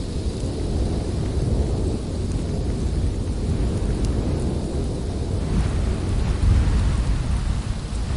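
Blizzard wind, a deep, continuous rumbling roar with gusts that swells a little about six seconds in.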